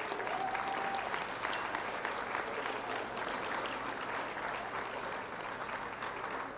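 Hot forge-welded wrought iron and steel quenched in a bucket of water, giving a steady sizzling crackle that starts suddenly and slowly fades. A brief thin whistle-like tone sounds in the first second.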